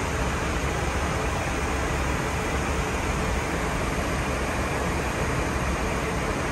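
Steady cabin noise of an Airbus A320 in flight: an even rush of engine and airflow noise with a low rumble underneath.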